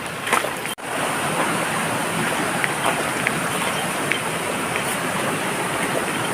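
Flowing stream water rushing steadily, with small splashes and ticks over it.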